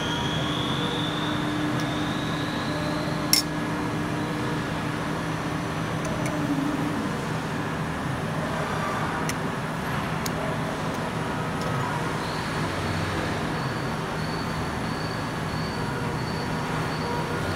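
A steady mechanical background rumble with faint steady tones. A single sharp click about three seconds in and a couple of faint ticks later come from the small metal fuel-cap parts being handled.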